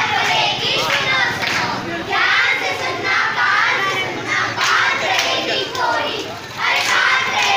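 A group of schoolchildren singing together, with hand clapping.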